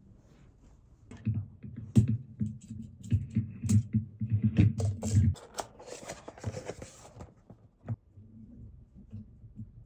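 Hands unclipping the fan from a full-copper Thermalright AXP90-X47 heatsink. A quick run of small plastic and metal clicks and taps with soft knocks under them, then a short scraping rustle about six seconds in as the fan comes away.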